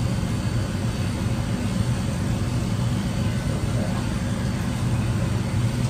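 Electric dog clippers fitted with a guard comb, running with a steady buzz as they are worked through a dog's coat.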